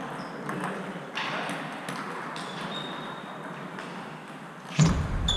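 Celluloid-type table tennis ball knocking off bats and table during a rally: a few sharp, spaced clicks over hall noise, with a louder thump near the end.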